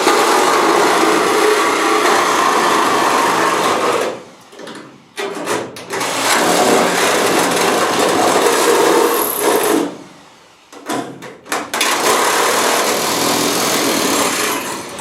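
Hand-held power tool working the car's body steel, run in three bursts of about four seconds each with short pauses between.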